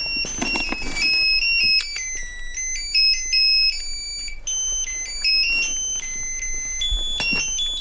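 Mobile phone ringing with a high, beeping electronic ringtone melody that steps quickly from note to note, just before the call is answered.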